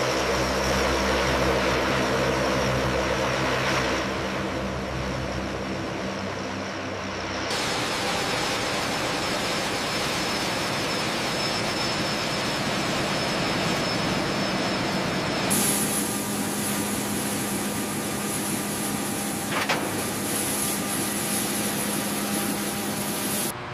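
Aircraft turbine engines running steadily at high power, the sound changing abruptly twice. First a low drone with steady humming tones, then an even rushing noise with a high whine, then a steady hum with a very high whistle.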